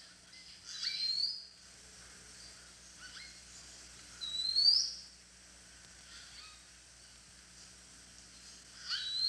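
A bird calling: a short upward-sweeping whistle, three times a few seconds apart, with fainter chirps between.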